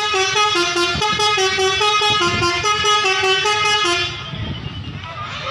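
A Laju Prima bus's basuri telolet horn, the multi-tone musical bus horn, playing a quick melody of short stepped notes. It stops suddenly about four seconds in.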